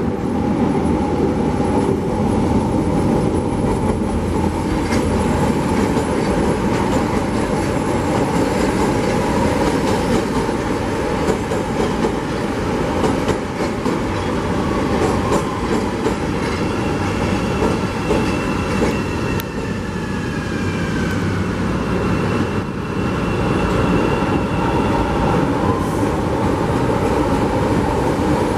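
CTA rapid-transit trains running past on steel track, a steady rumble of wheels on rail with clickety-clack from the rail joints. Over the middle stretch a thin high-pitched squeal rides on top, some of it sliding downward in pitch.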